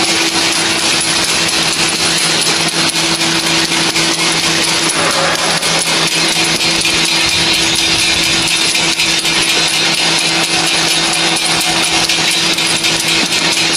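Automatic horizontal wrap-around labeling machine running: a steady motor hum with a high whine over a constant hiss and rattle of the conveyor, a lower hum joining about a second in.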